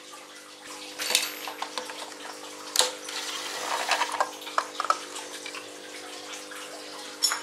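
A cordless drill-driver whirs briefly, unscrewing the cover of an air compressor's pressure switch, with sharp clicks and knocks as the plastic cover is handled. A steady faint hum runs underneath.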